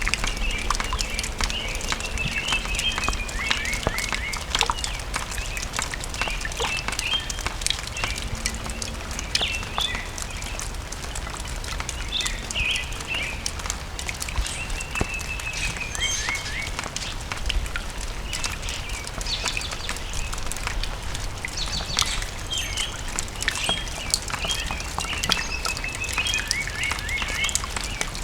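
Rainwater dripping irregularly from a gutter, many quick taps, with small birds chirping and twittering repeatedly.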